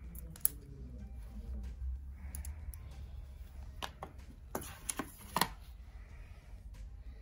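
Scattered light clicks and taps of an Apple Watch and its box being handled as the watch is lifted out, with a sharp click about half a second in and a quick cluster of clicks about five seconds in, over a low steady hum.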